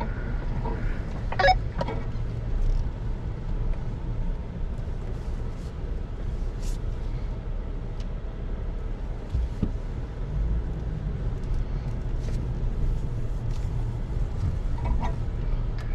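Pickup truck driving slowly along an overgrown dirt trail: a steady low engine and drivetrain rumble, with a few short clicks and snaps, the loudest about a second and a half in.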